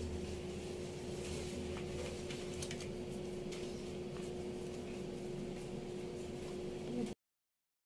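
Faint wet squishing of soapy hands and forearms being rubbed with a lathered soap foaming net, over a steady low hum with one held tone. The sound stops suddenly near the end.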